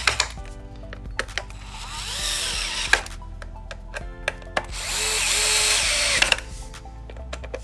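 Cordless electric screwdriver tightening the screws of a plastic controller box cover, in several short runs of rising motor whine with sharp clicks between them; the longest run comes about five seconds in.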